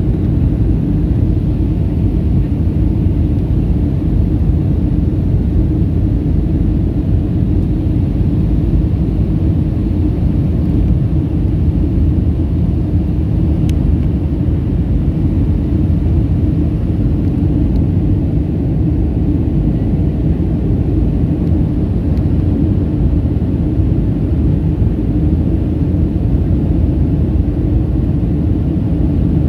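Steady low rumble of a Boeing 737-400's CFM56-3 jet engines and rushing air heard inside the passenger cabin, even in level throughout, with a faint click about halfway through.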